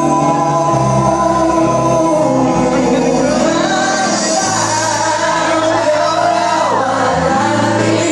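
Live band playing a song with a male lead singer, heard from among the audience in a large hall; bass notes change every second or so under the sung melody.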